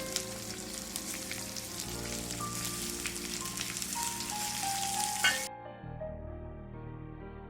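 Sliced onions and curry leaves sizzling in hot coconut oil in a pan, with background music. After a sharp clink about five seconds in, the sizzling cuts off suddenly and only the music remains.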